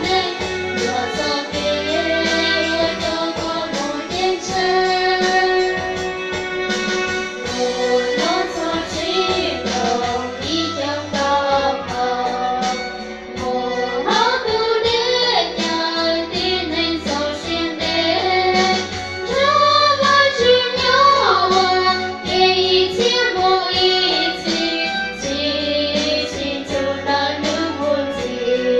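Two young women singing a song together into microphones, their voices amplified, over an instrumental backing with a steady beat.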